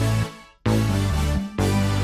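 Instrumental opening of an R&B song with a heavy, steady bass line. The music cuts out almost completely about half a second in and comes back a moment later.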